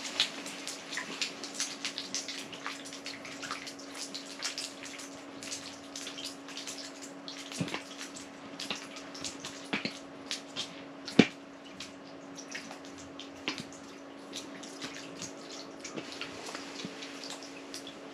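Water dripping and splashing at an ice-fishing hole as smelt lines are worked, with scattered small clicks and taps over a steady low hum, and one sharp knock about eleven seconds in.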